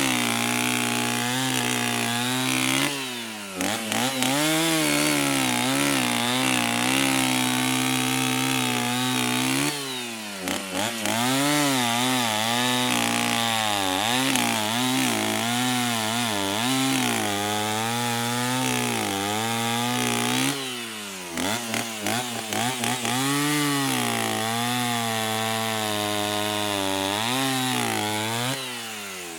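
Two-stroke chainsaw engine running and being revved up and down over and over, its pitch rising and falling in waves. It drops back briefly three or four times before picking up again.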